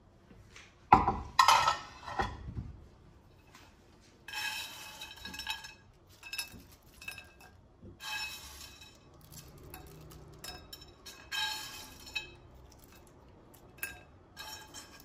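Sharp clinks of a metal utensil on a frying pan and a ceramic plate, loudest about a second or two in. Then three rattling, scraping bursts a few seconds apart as toasted bread croutons are spooned from the pan onto the plate of spaghetti.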